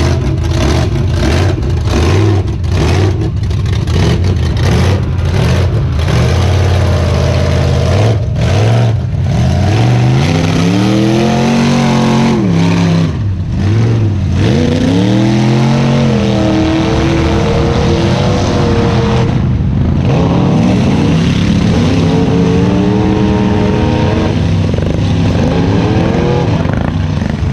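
Lifted mud trucks' engines running loud, with a rapid run of sharp pops over a steady low engine note for the first several seconds. Then comes repeated revving, the engine pitch climbing and falling several times as a truck churns through the mud pit.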